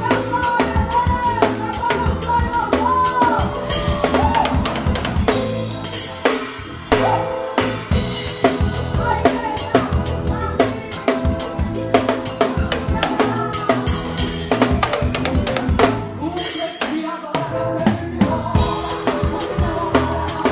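A band playing a gospel song, with a full drum kit prominent (bass drum, snare and rimshots) under held chords and a gliding melodic lead line.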